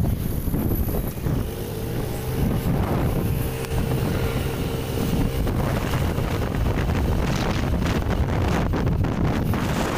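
Wind buffeting the microphone over the steady low rumble of a vehicle driving along a road.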